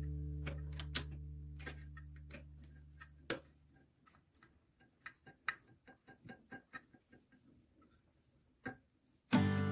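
Small irregular clicks and taps of plastic fittings being handled and screwed together, as a bidet's plastic T-adapter is threaded onto the toilet's angle stop valve. Background music fades out over the first few seconds and starts again near the end.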